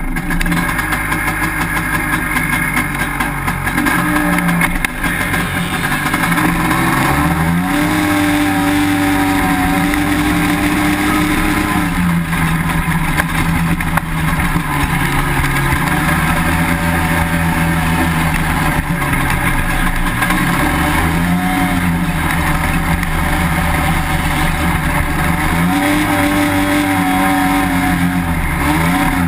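Honda FL400 Pilot's single-cylinder four-stroke engine running under load, revs climbing and easing off several times as it drives.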